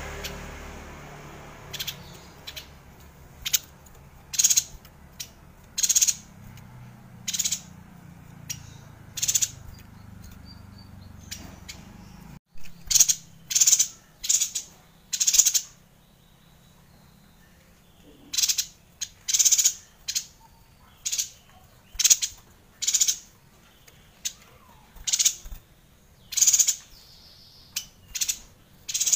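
Yuhina calling: a long run of short, sharp, high-pitched chirps, roughly one a second, with a brief pause in the middle.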